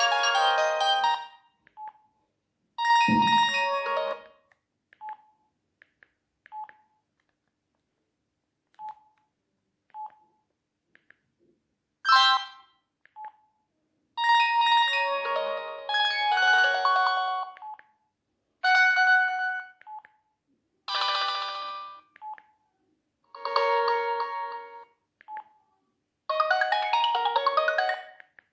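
Sony Ericsson J110i mobile phone playing short ringtone previews one after another, each a second or few of electronic melody, with brief single key beeps in the gaps between them.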